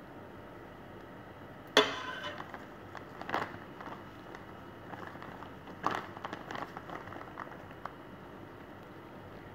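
A spoon knocking and scraping against a glass baking dish while spreading thick white sauce: one sharp clink with a short ring about two seconds in, then lighter knocks and scrapes around three and a half and six seconds in.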